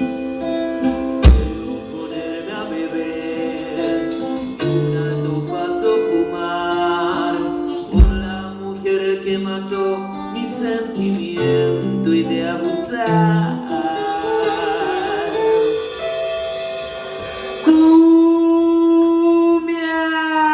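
Instrumental intro of a song: plucked guitar melody over a bass line, with two sharp loud hits, one just over a second in and one about eight seconds in. Near the end a louder long note comes in and slides downward.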